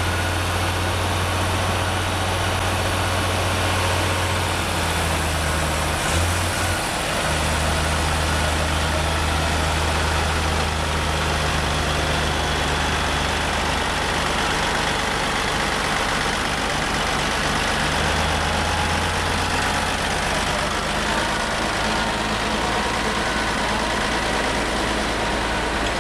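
Heavy diesel engines of a crawler bulldozer and a semi-truck idling steadily, with a deep low hum that wavers briefly about six seconds in.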